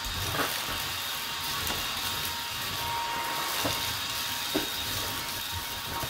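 JASHEN V16 cordless stick vacuum running on its turbo setting: a steady rushing hiss with a thin, high motor whine, and a few light knocks.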